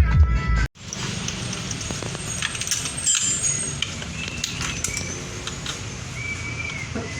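Background music cuts off abruptly under a second in, leaving steady background noise with scattered light clicks and a few short high-pitched tones.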